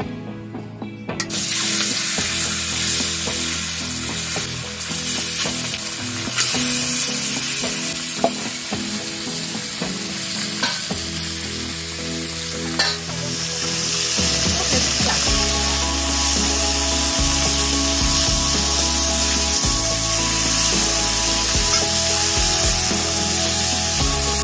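Fish pieces frying in hot oil in a metal kadai. The sizzling starts about a second in as they drop into the oil and grows louder after the halfway point, with occasional clicks of a metal spatula against the pan.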